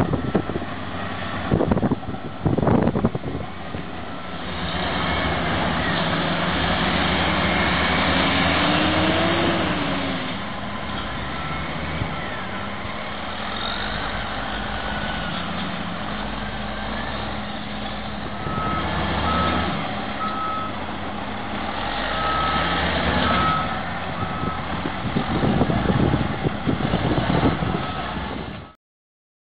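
Diesel engines of Caterpillar wheel tractor-scrapers and a crawler bulldozer running steadily on an earthmoving job. A reversing alarm beeps in several short runs over the engine noise.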